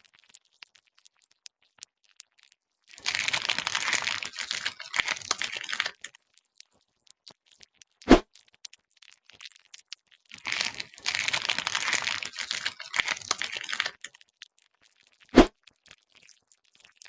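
Added ASMR sound effect of a razor scraping along skin: two stretches of dense crackling scraping, each about three seconds long. A single sharp knock, louder than the scraping, comes about eight seconds in, and another near the end.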